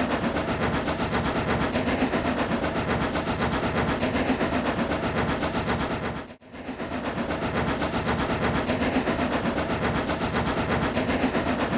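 Steam locomotive running sound effect, chuffing at a steady pace of about four beats a second. It breaks off briefly about six seconds in and fades back in.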